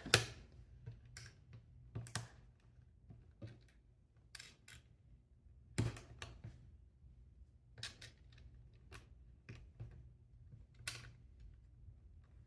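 Plastic Lego bricks being handled and pressed together: irregular light clicks and taps, with a few sharper clicks near the start, about halfway through and near the end.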